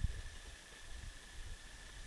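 Wind buffeting the microphone in uneven low rumbling gusts, sharpest right at the start.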